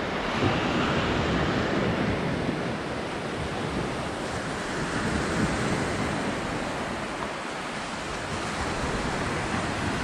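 Small Mediterranean waves breaking and washing up a sandy beach as a steady surf wash that swells and eases, with wind noise on the microphone.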